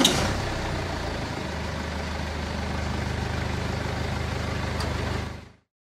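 A vehicle engine running steadily, a low hum under a broad hiss, with a sharp hiss at the start and fading out near the end.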